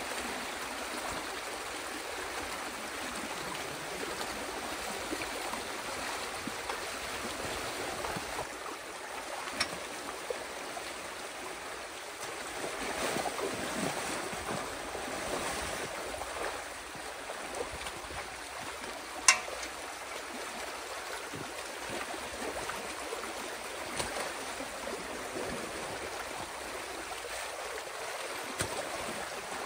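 Water rushing steadily through a breach dug in a beaver dam, with splashing from digging in the current. A single sharp click about two-thirds of the way through stands out above the flow.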